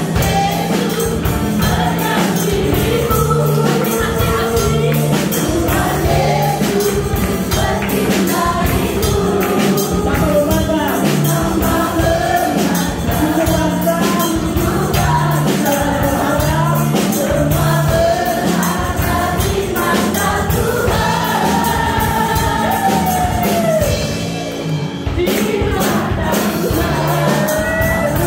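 Live gospel worship song: a congregation singing together with lead singers on microphones, backed by electric bass guitar and tambourine over a steady beat, played through a PA.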